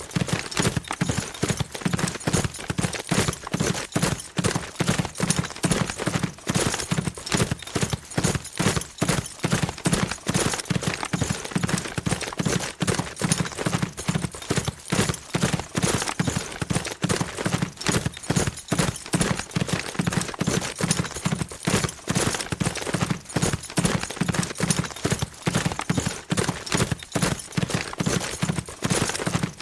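Horse galloping fast: a quick, continuous, even rhythm of hoofbeats.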